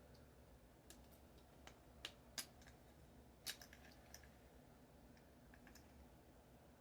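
Faint, scattered small clicks and light taps of tablet parts being handled during disassembly, several over a few seconds against near silence.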